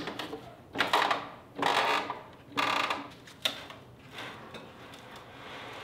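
Uline manual hydraulic pallet jack being pumped, three strokes of the handle about a second apart, each a short creaking rasp, as it lifts a heavily loaded pallet. A sharp click follows, then the jack rolls off with a low steady rumble of its wheels on the concrete floor.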